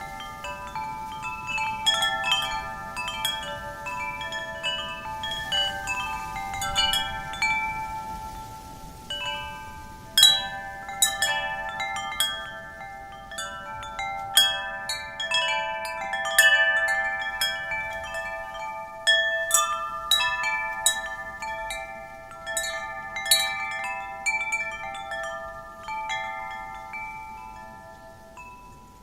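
Wind chimes struck irregularly by the wind, their metal tubes ringing at several fixed pitches that overlap and sustain, with a faint wind hiss beneath; the strikes thin out just before ten seconds in and again near the end.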